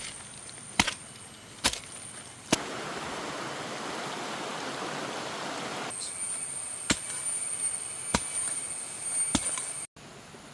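A digging tool striking soil again and again while a tree fern is planted: sharp single hits about a second apart, with a stretch of steady rushing noise in the middle lasting a few seconds.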